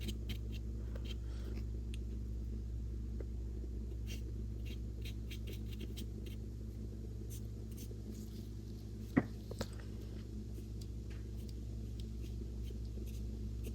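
Paintbrush dabbing and stroking acrylic paint onto gesso-primed paper: faint, scratchy brush sounds with light taps, over a steady low hum. A sharp click about nine seconds in.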